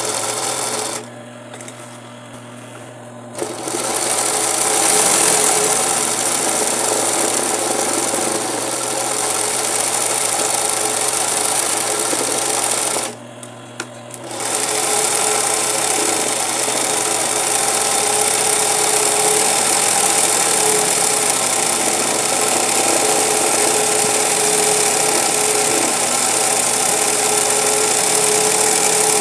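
20U industrial zig-zag sewing machine running fast, stitching a satin-stitch appliqué edge. It stops twice briefly, about a second in and again near the middle, leaving a low steady hum, then starts sewing again.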